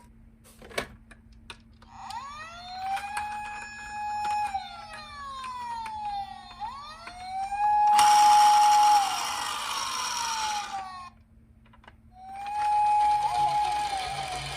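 Toy police car's electronic siren wailing, its pitch sweeping up and down in repeated, overlapping wails. A rushing noise joins it for a few seconds past the middle. After a short pause near the end, the wail starts again. A few clicks come before the siren begins.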